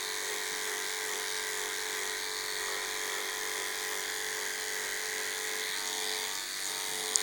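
Electric pet grooming clipper with a #10 blade, running with a steady hum as it shaves a schnauzer's head against the grain. A short click near the end.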